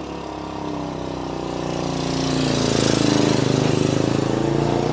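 Diesel engine of a WPZ-500 rail-laying machine running as it pulls new rails along slab track. It grows steadily louder, is loudest about three seconds in, then holds.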